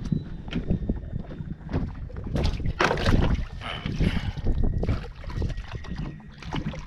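Wind rumbling on the microphone, with scattered knocks and clicks from handling gear on a small boat, busiest a couple of seconds in.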